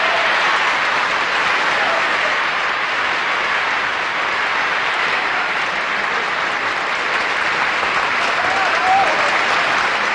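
Large theatre audience applauding, a dense steady clapping that holds throughout.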